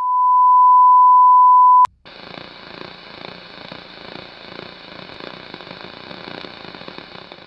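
A loud steady test-tone beep, the kind that goes with TV colour bars, held for about two seconds and cut off by a click. Hissing, crackling television static follows.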